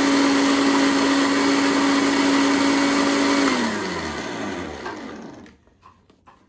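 Countertop jug blender running steadily on chunks of yellow watermelon with no water added, then switched off about three and a half seconds in, its motor whine falling in pitch as it spins down and dies away. A few faint clicks near the end.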